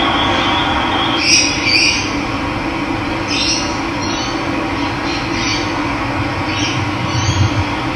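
Running water with a steady rush, and birds giving short high calls again and again over it, a pair of them about a second in.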